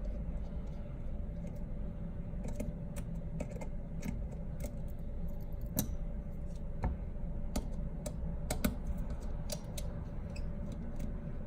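Scattered small clicks and taps of a screwdriver working the two Phillips screws on a phone's motherboard, over a steady low hum.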